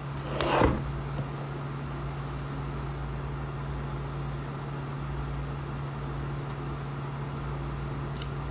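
Steady low hum, like an appliance or ventilation unit running, with one short burst of noise about half a second in.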